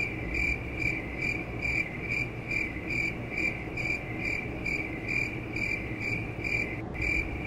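Crickets-chirping sound effect laid over an awkward pause: one high, steady cricket chirp repeating evenly about twice a second, with a brief break near the end.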